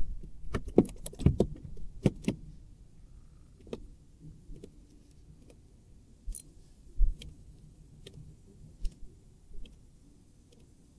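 Fishing rod and spinning reel being handled: a quick run of sharp clicks and knocks in the first two seconds or so, then scattered lighter clicks.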